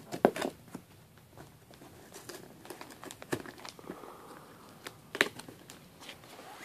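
Cardboard shipping box handled and opened by hand: irregular taps and knocks on the cardboard with crinkling of packing tape and plastic. The loudest knocks come at the start and about five seconds in.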